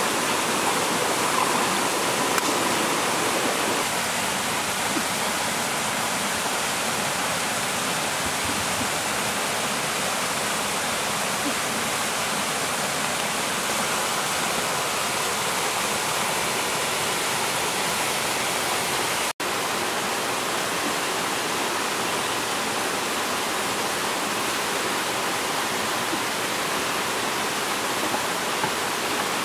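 Steady rush of a shallow, rocky stream flowing over stones, with a split-second dropout about two-thirds of the way through.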